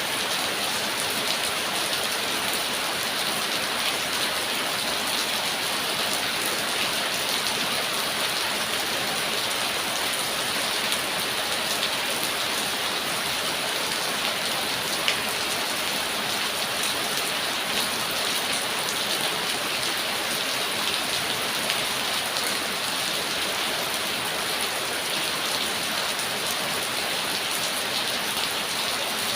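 Steady heavy rain falling and pattering on surfaces, a dense even hiss with many small drop taps mixed through it.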